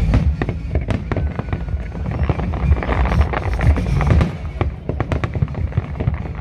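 Aerial fireworks going off in rapid, repeated sharp bangs and crackles, with music playing.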